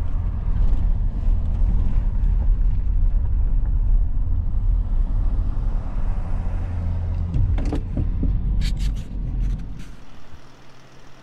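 A vehicle driving on the highway, heard from inside: a steady low rumble of engine and road noise. A few sharp clicks come in a little after two-thirds of the way through, and the rumble drops away near the end.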